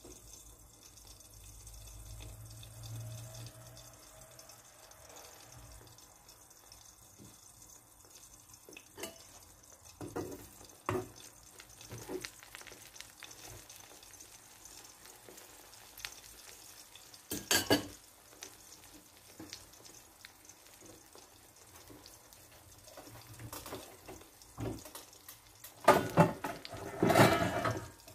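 Egg with tomato and onion frying in a nonstick pan, with a faint steady sizzle. A few light knocks of a spatula against the pan come in the middle, and a louder clatter of spatula on pan comes near the end.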